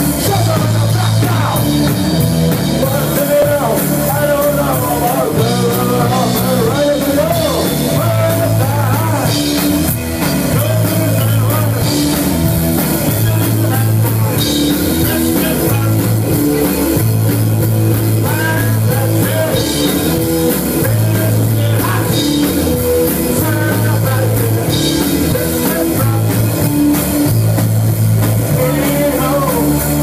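A rock band playing live and loud: bass guitar and drum kit driving a steady repeating beat, with singing over the top.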